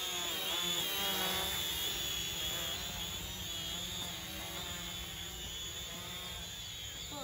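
Small toy quadcopter drone flying overhead, its propellers buzzing with a whine that wavers up and down in pitch as the motors speed up and slow down.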